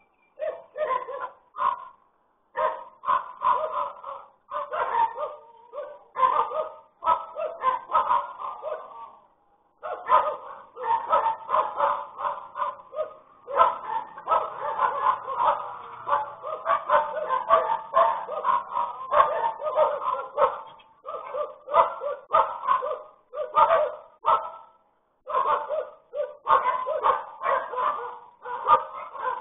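A dog barking over and over in quick runs, several barks a second, with a few brief pauses, heard through a security camera's microphone.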